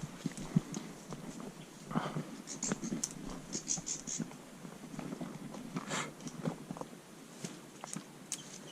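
Footsteps crunching and rustling through dry grass and undergrowth in an irregular walking rhythm, with a brief run of high bird chirps a few seconds in.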